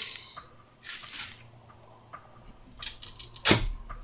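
Light handling noises from a cardboard manga box set and its plastic wrapping: a brief rustle about a second in, a few small clicks, and a short louder noise near the end.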